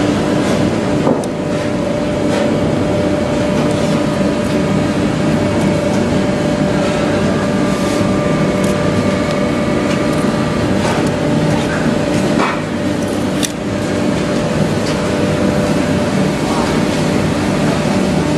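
Wood block making machine running with a steady, loud mechanical hum and drone, with a few sharp clicks over it.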